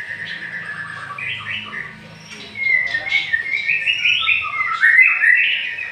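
Caged songbird singing: a run of quick chirps and warbled phrases, with the song growing louder and busier about two and a half seconds in.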